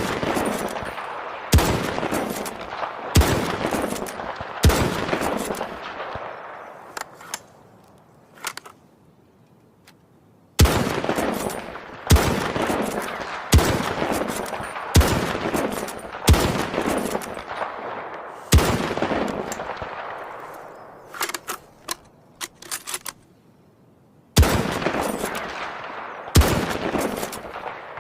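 M24 SWS bolt-action sniper rifle firing about eleven shots in three strings, the shots about a second and a half apart. Each sharp crack is followed by a long echoing tail, and a few faint clicks fall in the pauses between strings.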